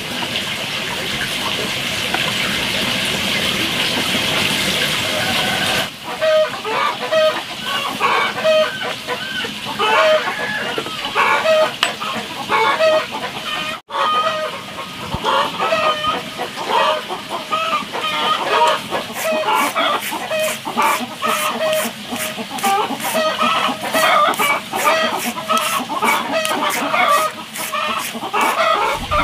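Chickens clucking in short, repeated calls. A steady hiss fills the first six seconds, and quick clicks join the calls in the later part.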